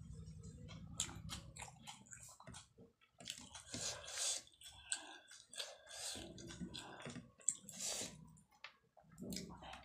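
Close-miked chewing of a mouthful of food, with frequent wet smacking and clicking mouth sounds.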